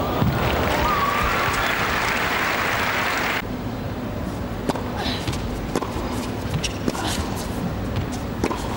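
Arena crowd applauding a point, cut off abruptly about three seconds in. Then a tennis serve and rally: sharp racket strikes and ball bounces about once a second over faint crowd background.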